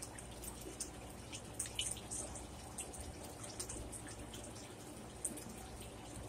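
Close-up wet chewing and mouth clicks from eating oven-roasted chicken, pulling meat off the bone: many small, irregular smacks and clicks.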